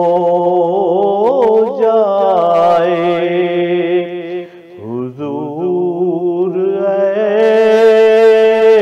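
A man singing a naat, stretching each syllable into long held notes with wavering ornamental turns. He pauses briefly about halfway, then comes back lower and rises to another long held note.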